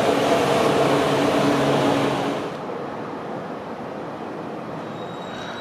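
E4 series Max double-deck Shinkansen running past: loud rolling rush with a steady hum. About two and a half seconds in it gives way to a quieter, even background hiss.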